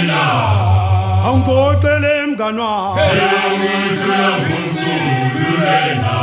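Male vocal group singing a Zulu song together in several voices, with a deep bass note held through the first two seconds.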